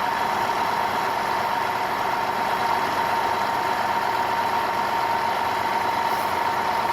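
A motor running steadily, a constant high hum over an even hiss.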